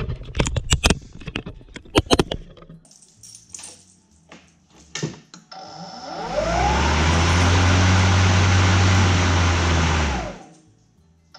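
Several clicks and knocks, then the Kobalt 80-volt brushless mower's blade motor spins up with a rising whine, runs steadily for about four seconds, and winds down as it is switched off.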